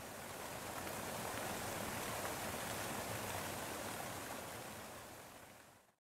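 Waterfall: a steady rush of falling water, fading in over the first second and fading out near the end.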